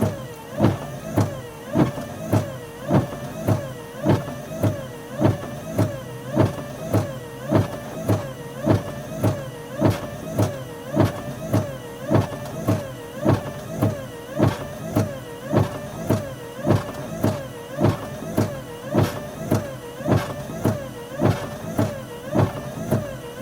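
Car windshield wipers on fast speed heard from inside the cabin, sweeping in a steady rhythm of about one and a half strokes a second, each stroke ending in a thump, with the wiper motor whining up and down on every sweep. Heavy rain hisses on the car behind them.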